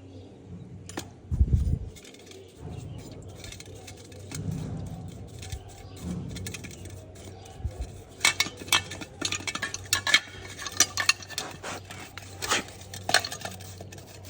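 Small metal parts clinking and clattering as they are handled: a low thump about a second and a half in, then many quick sharp clinks through the second half.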